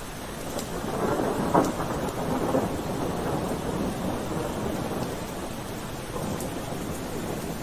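Steady rain falling, with a roll of thunder that swells about a second in, peaks with a crack, and fades back into the rain over the next few seconds.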